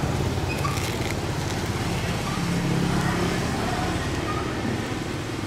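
Steady street traffic noise, with motorbike and car engines running on the road.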